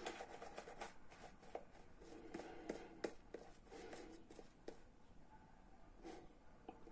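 Faint soft rubbing and squelching of shaving lather being worked over the face by hand, with scattered small clicks.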